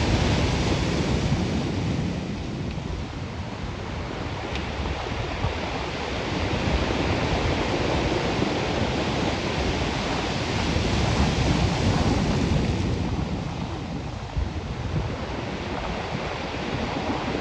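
Ocean surf breaking on a rocky shore: a steady, loud wash of crashing water that swells and eases as the waves come in.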